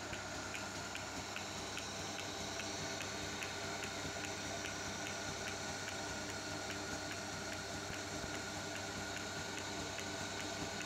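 Emco Unimat 3 lathe running, driven from a bench drill motor through a 5 mm urethane round belt: a steady hum with a light regular tick about twice a second.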